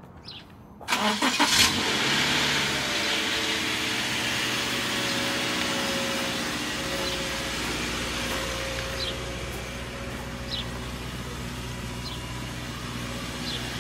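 A car engine cranks briefly and starts about a second in, then idles steadily, getting a little quieter.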